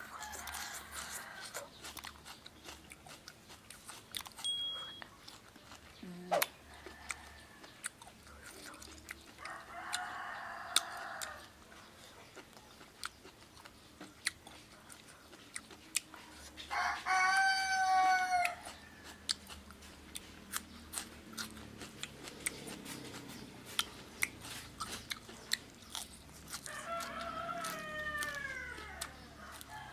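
Close chewing and biting, with many small clicks throughout. A rooster crows loudly about seventeen seconds in, and again near the end with a falling tail.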